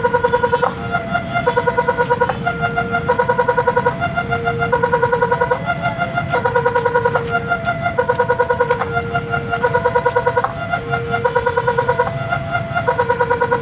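Electronic warning alarm of a railway level crossing, sounding its repeating cycle: a fast pulsing trill alternates with a steady held tone, the pattern returning about every one and a half seconds. The alarm is faulty ('sirine error').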